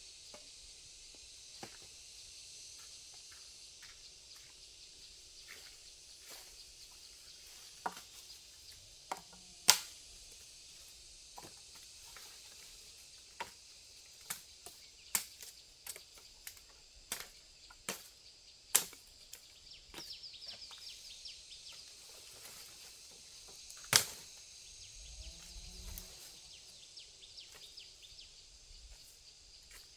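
Sharp chopping knocks at irregular intervals, often a second or so apart, the loudest about ten seconds in and again near the end, over a steady high hiss.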